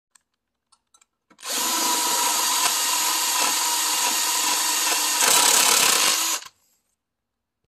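Power drill running under load, drilling out a snapped-off bolt in a miter saw's table. It starts about a second and a half in, runs steadily for about five seconds, grows a little louder near the end, then stops abruptly.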